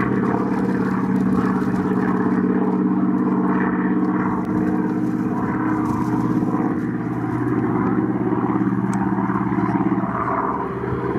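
Piston engine and propeller of a single-engine warbird running hard through aerobatics overhead, a steady pitched drone throughout.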